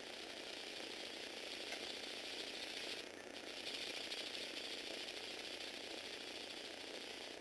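Plastic gears and motor of a motorised Lego Technic vehicle running with a steady, ratchet-like rattle, dipping briefly about three seconds in.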